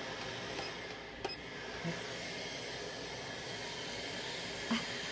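Steady hiss of room noise with a few light knocks and clicks, one about a second in and one near the end.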